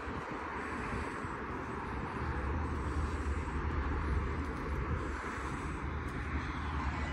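Steady hum of distant road traffic, with a low rumble that grows stronger about two seconds in.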